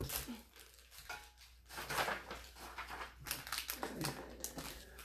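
Faint, irregular rustling and crinkling of trading-card packaging and plastic sleeves as cards are handled.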